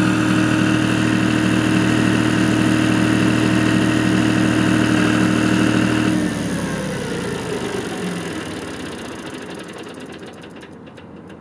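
John Deere 5055E tractor's three-cylinder diesel engine running steadily, then shut off about six seconds in: the engine note stops abruptly and a falling whine fades away over the next few seconds. A few faint ticks near the end.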